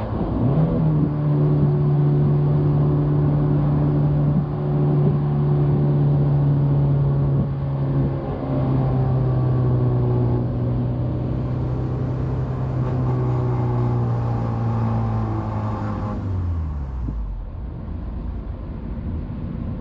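2001 Honda S2000's 2.0-litre F20C four-cylinder engine pulling at fairly steady revs while driving, with a quick jump in revs about half a second in. Near the end the engine pitch falls steeply as the revs drop away and the car slows.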